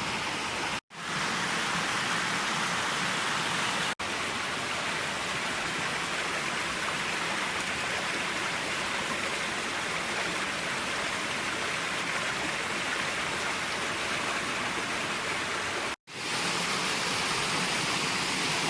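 Steady rush of water from a small waterfall, an even hiss with no pitch to it. It drops out for a moment three times: about a second in, about four seconds in and near the end.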